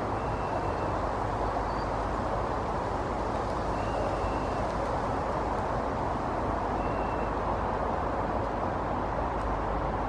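Steady background hum of distant city traffic, even in level throughout, with a faint short high note every few seconds.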